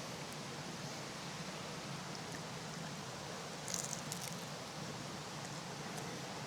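Steady rushing of a flowing creek, with a brief crinkle, like packaging being handled, about four seconds in.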